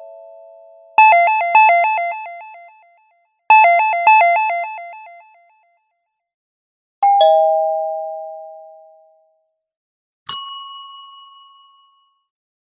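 A run of chime sound effects: two short bursts of quickly alternating chime notes, then a two-note ding-dong that falls in pitch, then a single bright bell ding that rings out for about a second and a half.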